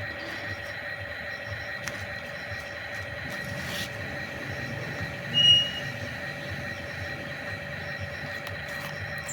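Small electric motors and gears of a remote-control toy excavator whining steadily, with one short, high squeal about five and a half seconds in.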